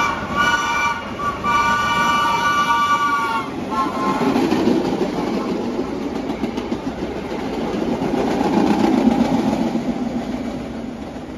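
A vintage New York City subway train sounds its horn, two short blasts and then a long one. Its R1-9 cars then run past on the rails, clattering, getting louder to a peak and then fading as they go by.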